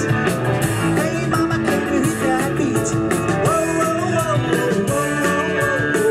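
Rock and roll band playing live: drum kit and electric guitar driving a fast beat.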